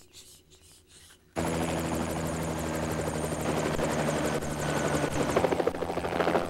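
Quiet room tone for about the first second and a half, then a helicopter cuts in suddenly and loudly at close range. Its rotor beats steadily over a high engine whine.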